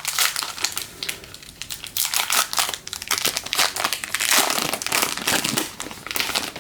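Foil wrapper of a trading card pack crinkling and crackling as it is handled and opened, a dense run of irregular crackles that stops at the end.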